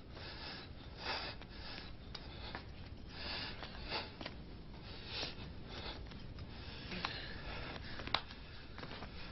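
A man's heavy, uneven breathing: faint breaths or sniffs roughly once a second, with a sharp click near the end.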